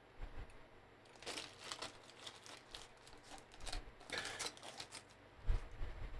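Wrapping being peeled and torn off a beer can, crinkling in short irregular bursts, with a soft thump from the can near the end.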